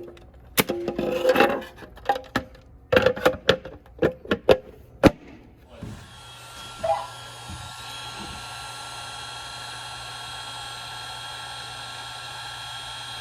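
A run of sharp clicks and knocks, then about six seconds in a hot-air heat gun switches on and blows steadily with a faint whine, heating a heat detector to set it off for its test.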